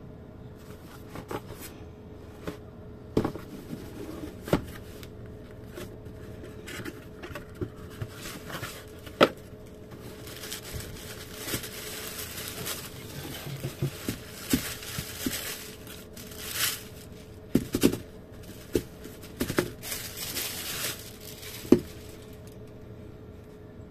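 Cardboard shoebox being handled with scattered taps and knocks, then thin tissue paper crinkling and rustling for about ten seconds as it is pulled back. A few sharp knocks follow, the last near the end as the shoes are set down on a tile floor.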